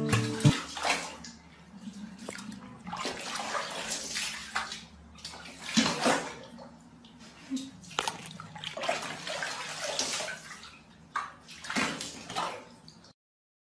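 Water splashing and sloshing in a plastic tub as a kitten moves and paddles in it, in irregular bursts. The sound cuts off abruptly shortly before the end.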